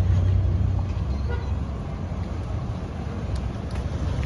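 Low engine rumble of a chicken bus, a converted former American school bus, pulling across the lot. It is loudest at first and eases off a little. A brief horn toot sounds about a second in.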